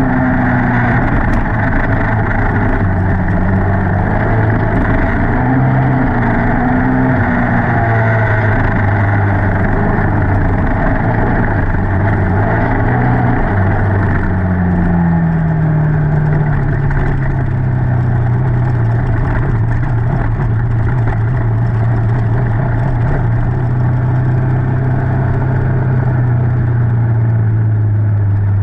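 Honda TRX300EX quad's single-cylinder four-stroke engine running hard under race throttle, heard close up from on board. The engine note rises and falls for the first half, then settles about halfway through into a steady pitch that sags slowly.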